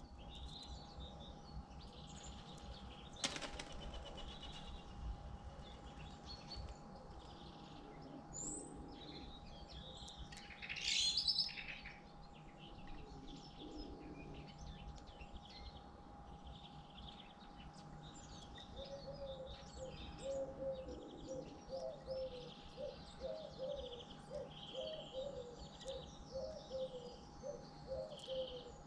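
A carrion crow's wingbeats in a short flurry about eleven seconds in, with a single knock a few seconds earlier. Small birds chirp in the background throughout.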